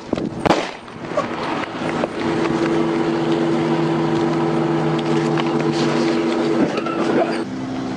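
A vehicle engine running with a steady, even hum, after a sharp click about half a second in. The hum changes to a lower pitch near the end.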